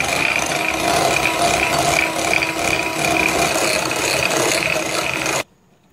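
Electric hand mixer running steadily with a constant whine as its beaters whip chilled desi ghee in a glass bowl, creaming it for naan khatai dough. It switches off suddenly near the end.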